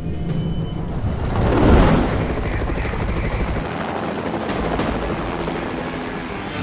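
Heavy vehicle-like low rumble that swells into a loud whoosh about two seconds in, then eases and runs on steadily.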